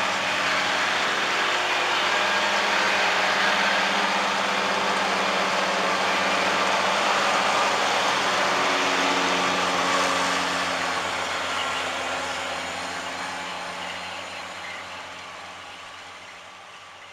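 John Deere 6170M tractor's six-cylinder diesel running under load while mowing grass with its mower conditioner, a steady engine drone mixed with the dense whirr of the cutting rotors. It passes close, then fades steadily over the last several seconds as it moves off.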